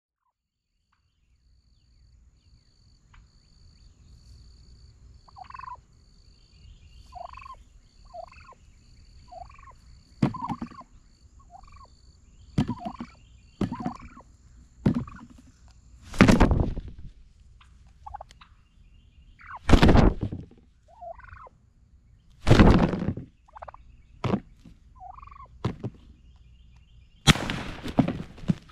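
Wild turkey gobblers gobbling repeatedly, with a few loud gobbles in the second half. Shorter turkey calls come between them about every second.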